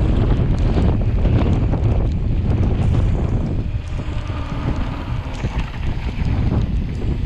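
Heavy wind buffeting the microphone of a camera on a mountain bike rolling fast downhill on pavement, mixed with tyre noise and scattered light clicks and rattles from the bike. It eases off slightly for a couple of seconds midway.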